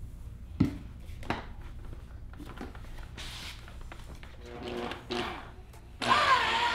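An electric rotary polisher with a wool pad running faintly against car paint, with a couple of sharp knocks in the first second and a half. About six seconds in, background music with a wavering melody starts and becomes the loudest sound.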